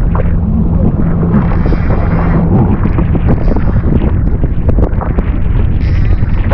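Heavy wind buffeting the microphone over the steady low hum of a jet ski engine idling, on open sea.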